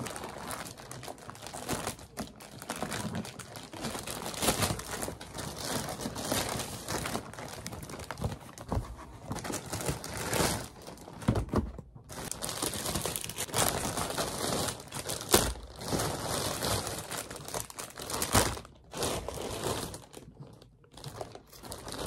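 Plastic parcel packaging being handled and opened: irregular crinkling and rustling with some tearing, broken by a couple of short pauses.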